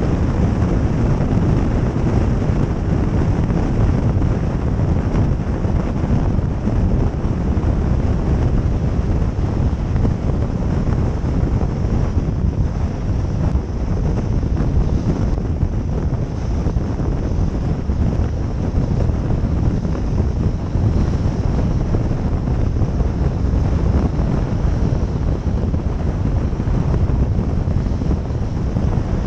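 Steady rumble of a car driving on a wet, slushy motorway, with wind buffeting the microphone and tyre and road noise underneath.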